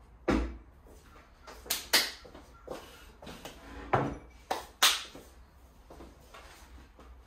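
A wooden 2x4 board knocking against a portable work table as it is set down and shifted into place: about six sharp knocks, the loudest about a third of a second in, around two seconds in and just before five seconds in.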